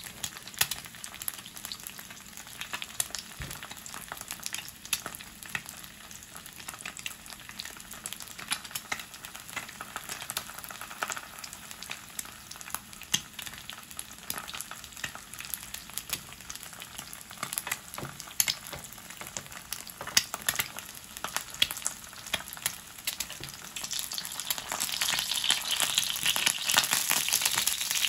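An egg frying in hot oil in a skillet: a steady sizzle full of sharp crackles and pops of spitting oil, growing louder about four seconds before the end.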